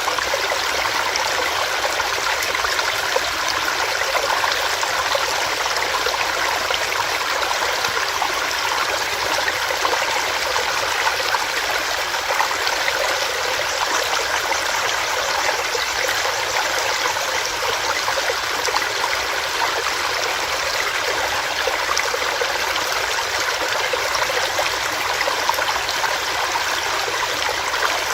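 Small stream running steadily over rocks.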